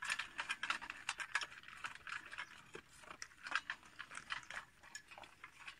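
Dogs eating dry kibble from metal bowls: irregular crunching and chewing as the pellets are bitten.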